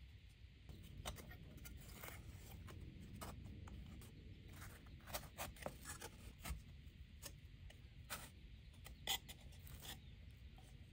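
Faint light taps, clicks and small scrapes of a balsa wing rib and thin balsa spars being handled and fitted together on a plastic-covered plan sheet, with one sharper click about nine seconds in.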